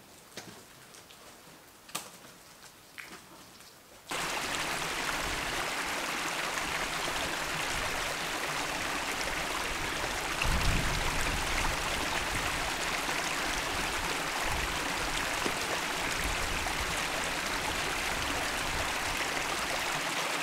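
A few faint footsteps on a bush track, then, from about four seconds in, the steady trickle and flow of a small creek. A brief low thump comes about ten seconds in.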